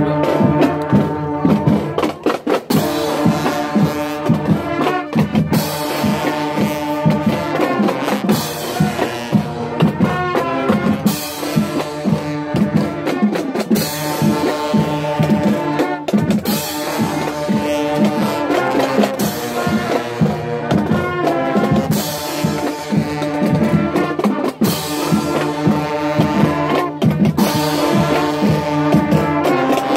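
School band's brass section (trombones, sousaphone and mellophone) playing a loud tune together over a steady drumbeat.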